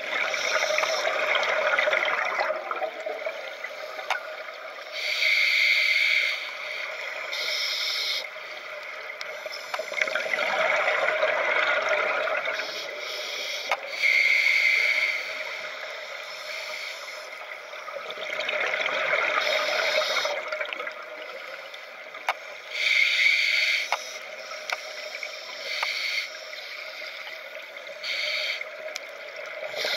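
Scuba diver breathing through a regulator, about three breaths: a short hiss on each inhale and a longer rush of bubbles on each exhale, with scattered faint clicks.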